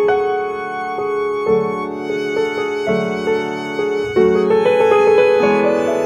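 Instrumental passage of a song: a violin playing held notes with vibrato over accompanying chords that change about every second and a half.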